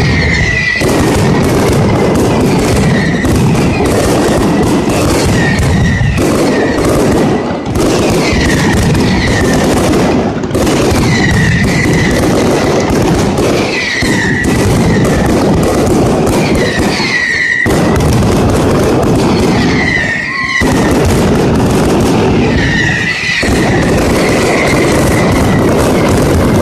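Mascletà: a dense, unbroken barrage of firecrackers cracking and banging, with short falling whistles cutting through every second or two and brief dips every few seconds.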